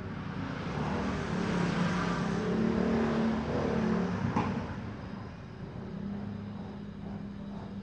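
A motor vehicle passing by: engine noise swells over a couple of seconds, peaks a few seconds in, then fades away.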